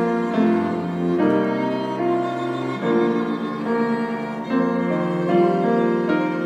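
Violin, cellos and piano playing an instrumental passage of a slow hymn-like piece, in held notes that change about once a second.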